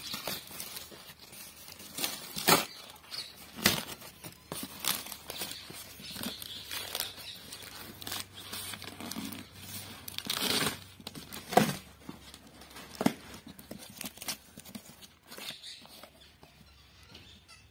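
Corrugated cardboard and plastic wrap being torn and crumpled by hand: irregular crackles, rustles and sharp snaps, with a longer tearing stretch about ten seconds in.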